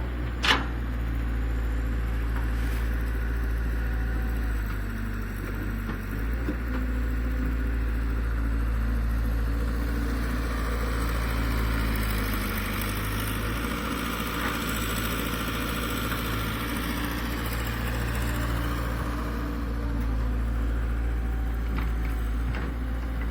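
Heavy diesel engine of working earthmoving machinery running steadily, its note shifting a little with load. A single sharp clank comes about half a second in.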